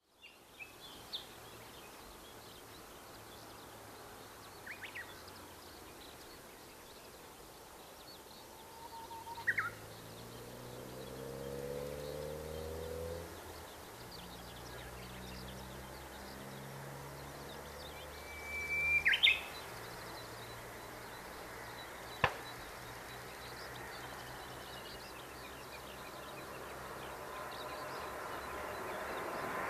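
Birds chirping now and then over the faint low drone of a Boeing 787-8's Rolls-Royce Trent 1000 jet engines during landing, the engine noise swelling near the end. One sharp click about two-thirds of the way through.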